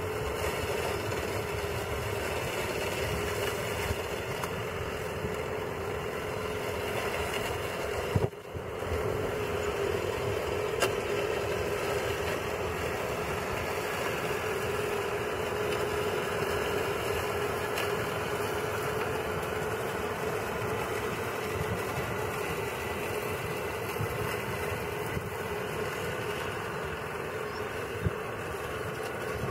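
Walk-behind petrol lawn mower engine running steadily at a constant speed as it is pushed across the grass, with a brief break and click about eight seconds in.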